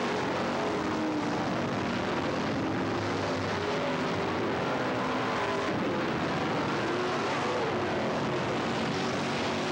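Dirt-track stock car engines at racing speed: a steady drone whose pitch rises and falls as the cars accelerate and lift through the turns.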